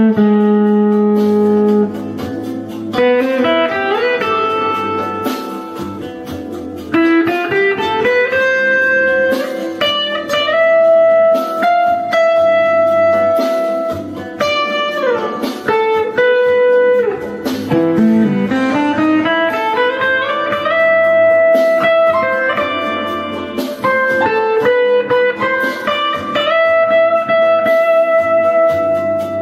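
Guitar playing a slow melodic solo. Long held notes are joined by slides and bends that glide up and down in pitch, over steady low accompanying notes.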